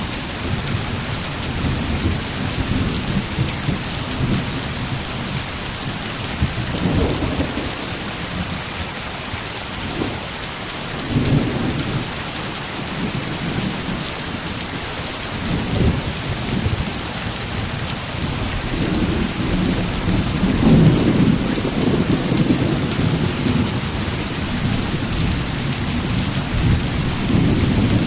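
Heavy rain falling steadily, with thunder rumbling again and again underneath and swelling loudest about two-thirds of the way through.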